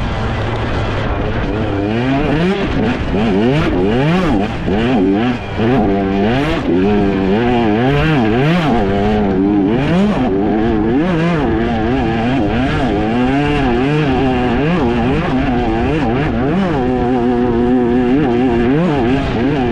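Enduro dirt bike engine revving up and easing off again and again as the throttle is worked through the gears. The pitch rises and falls about every second, with a short drop in level about five seconds in, and holds steadier near the end.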